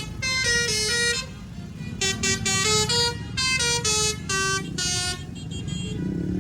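Bus 'telolet' musical horn playing a quick tune of short notes that jump between pitches. It plays in two runs with a short break between them and stops about five seconds in, over a low steady rumble.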